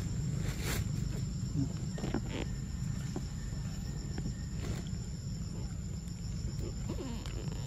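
Insects drone steadily at a high pitch over a low outdoor rumble. A few soft clicks and smacks come as a macaque bites into and chews a ripe mango.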